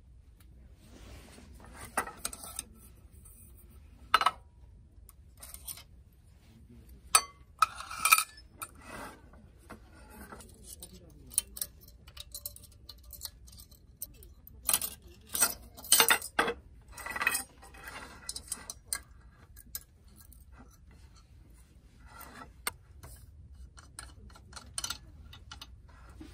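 Intermittent clinks, clicks and knocks of small hard objects, metal and glass, being handled and set down, with a busy cluster in the middle and softer taps near the end.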